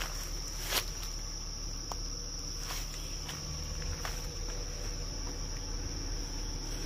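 Insects trilling in one steady, high-pitched tone, with a brief knock a little under a second in.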